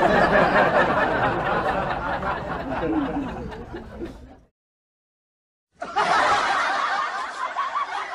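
Several people laughing and chuckling together, the laughter fading over a few seconds, cutting out to dead silence for over a second about halfway through, then starting again.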